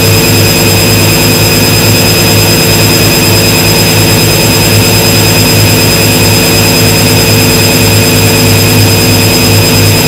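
Front-loading washing machine running with its drum turning: a loud, steady motor hum with a faint pulse and a thin steady whine above it.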